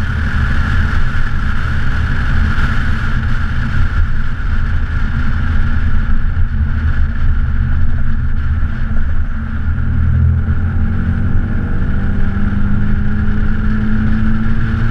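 Mercedes-Benz 280SL's straight-six engine running as the car drives, with steady road and rushing-air noise. After a short dip about nine and a half seconds in, the engine note climbs slowly in pitch as the car accelerates.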